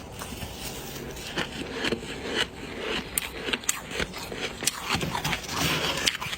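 Ice being bitten and crunched close to the microphone: irregular sharp cracks and crackles over a gritty scraping texture.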